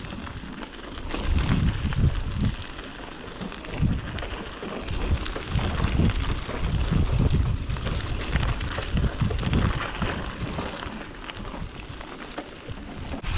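Wind buffeting the microphone in uneven gusts of low rumble, over a steady crackling hiss of outdoor noise.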